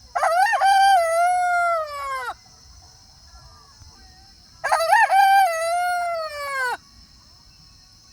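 Rooster crowing twice, each cock-a-doodle-doo about two seconds long and dropping in pitch as it ends, the second starting about four and a half seconds in.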